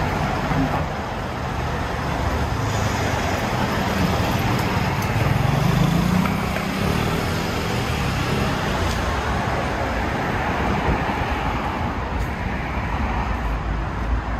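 Street traffic noise: a steady wash of road noise, with a vehicle engine hum that swells and fades about five to seven seconds in.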